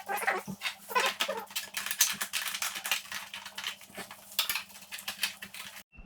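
Metal tools and parts clinking, tapping and rattling in quick irregular clicks as a motorcycle is dismantled, over a faint steady hum; the sound cuts off suddenly just before the end.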